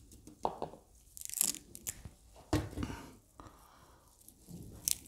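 Fresh radish leaves being snapped and torn from their stems by hand: irregular crisp snaps and crackles, with leafy rustling between them.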